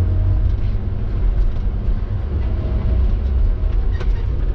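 Diesel engine of a Tigercat knuckleboom log loader running steadily under load, heard from inside the cab, while the loader swings logs onto a log truck. A faint higher whine comes and goes over the low rumble.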